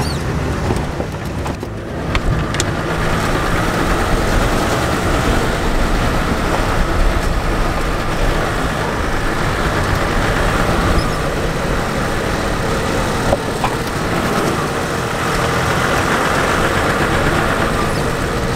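Jeep driving along a sandy dirt track, heard from inside the cab: steady engine and road noise with a few light knocks.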